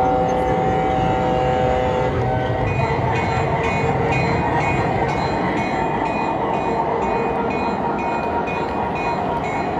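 Model train running along its track, a steady rolling rumble of wheels and motor under the riding phone. For the first two seconds a chord-like horn sounds, then a short high ding repeats about twice a second, like a locomotive sound unit's bell.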